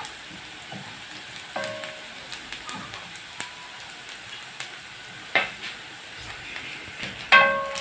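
Sliced onions and spices sizzling in hot oil in a frying pan while a wooden spoon stirs them, knocking against the pan a few times with short ringing clanks, the loudest near the end.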